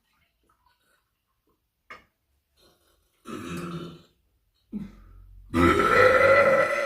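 A person burping: a short belch about three seconds in, then a longer, louder belch near the end that rises in pitch.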